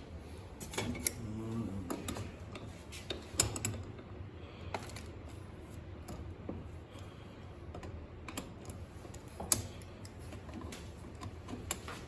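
Irregular light clicks and taps from small gas-range parts being handled during repair, a few sharper knocks among them.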